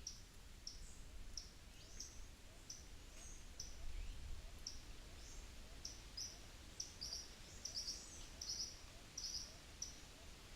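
Small birds calling in a natural soundscape: short, high chip notes repeated roughly every half second, growing denser and louder in the second half, over a faint low wind rumble.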